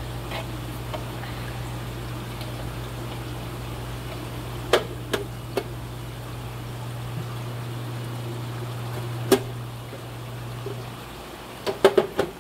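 Aquarium fish-room hum with a faint wash of moving water, broken by a few sharp knocks and clicks as hang-on breeder boxes and fry-moving gear are handled, with a quick run of clicks near the end. The low hum drops away shortly before the clicks.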